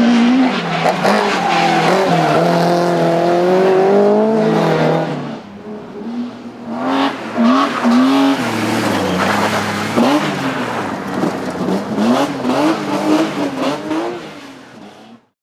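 Rallycross car engines at full throttle, loud, the pitch climbing steadily for the first five seconds. After a dip, a white BMW compact rallycross car revs up and down in short bursts as it lifts and accelerates. The sound cuts off abruptly near the end.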